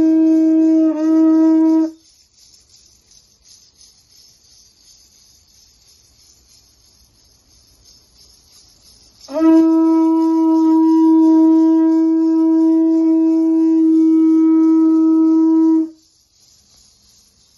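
Conch shell trumpet blown in long, steady single-pitched blasts: one ends about two seconds in, and a second, sliding up into its pitch at the start, sounds from about nine to sixteen seconds in.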